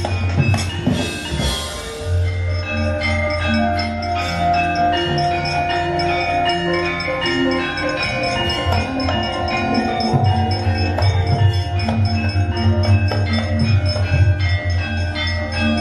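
Javanese gamelan playing: bronze metallophones and gongs ring in a steady, even piece over a sustained low gong hum, with a brief crash about a second in.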